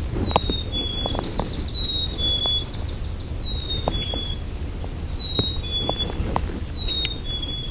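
A songbird repeating a clear two-note whistle, the second note a little lower, every second and a half or so, with a second bird's buzzy trill for a couple of seconds about a second in. Under it there is a steady low outdoor rumble and a few soft clicks.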